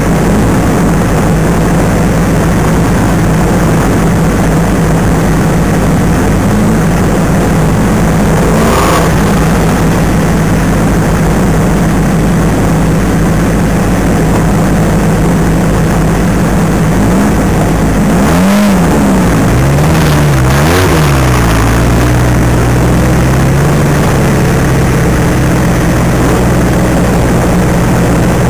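Off-road racing buggy's engine idling steadily, heard from on board the stationary car. About two-thirds of the way through the revs rise and fall in a few short throttle blips, then settle back to idle.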